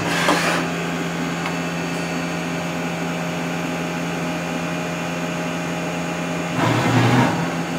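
2005 Mazak SQR-200 CNC lathe running with a steady mechanical hum made of several constant tones. A brief louder burst of rushing noise comes at the start and again near the end.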